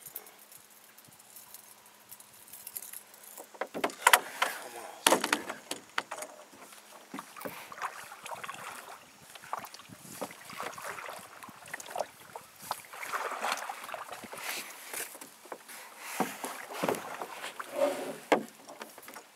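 Water splashing and sloshing around a canoe, with scattered knocks of gear or paddle on the hull, as it is paddled or handled on the lake. It starts about three and a half seconds in, after a near-quiet start with a faint hum, and goes on irregularly.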